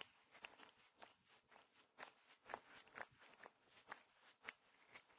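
A cat's rough tongue licking a human fingertip: faint, wet rasping clicks, about two a second.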